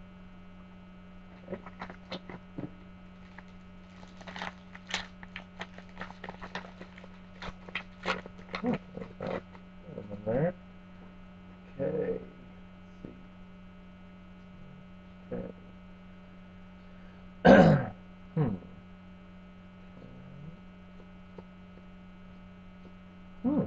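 Steady electrical hum on the recording, under a run of short crinkling and rustling clicks as foil card-pack wrappers and trading cards are handled. About two-thirds of the way through comes one short, louder vocal sound from the man.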